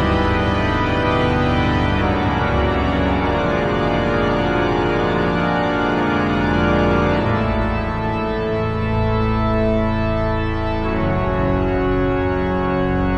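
Large cathedral pipe organ, the great organ of Notre-Dame de Paris, playing loud sustained full chords over a deep pedal bass, the harmony shifting about seven seconds in.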